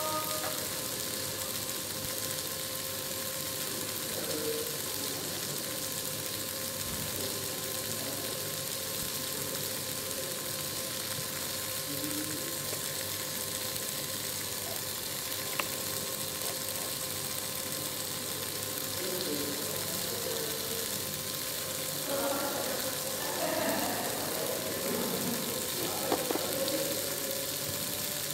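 A steady hiss with a faint constant hum from a small electric motor. Brief faint pitched sounds come and go, more of them in the last few seconds.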